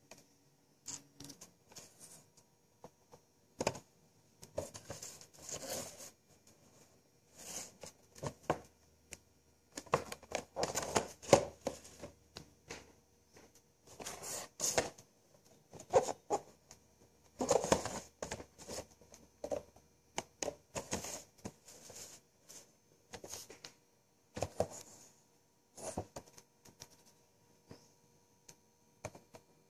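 Packaging of a Funko Pop order being handled and opened: irregular bursts of rustling, crinkling and tearing, busiest through the middle, with short pauses between.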